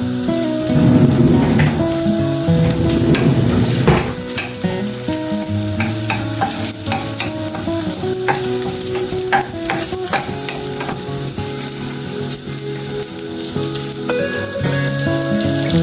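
Spicy chorizo sizzling in olive oil in a frying pan, with a spatula stirring and scraping it around the pan, busiest and loudest in the first four seconds.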